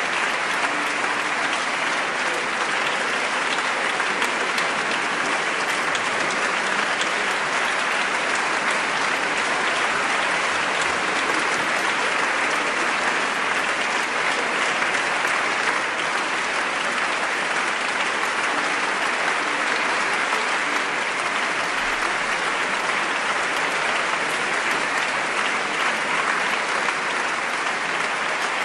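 Large concert audience applauding steadily and at length, without a break: the sustained applause that calls a soloist back for an encore.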